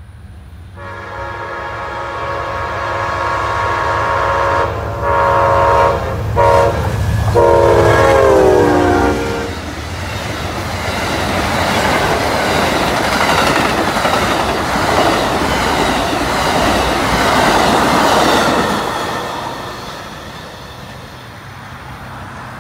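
Amtrak passenger train sounding its multi-chime horn in several blasts as it approaches a grade crossing, the chord dropping in pitch as the locomotive passes. This is followed by the steady rumble and clickety-clack of the passenger cars rolling by, fading near the end.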